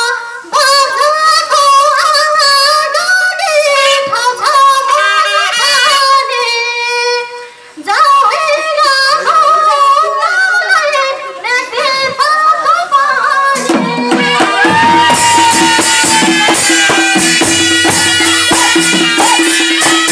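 A woman sings a Nepali folk song solo into a microphone, holding one long note partway through. About two-thirds of the way in, panche baja band music takes over: a shehnai reed melody over drums and clashing cymbals.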